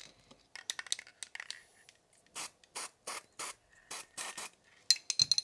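Rhythmic scraping strokes, about three a second, like a hand working something against a surface, followed by a short knock near the end.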